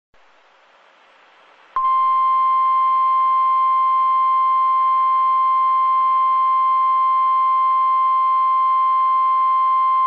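NOAA Weather Radio's 1050 Hz warning alarm tone: one loud, steady beep that starts about two seconds in and holds without a break, signalling that a severe thunderstorm warning is about to be read. Before it there is faint hiss from the stream.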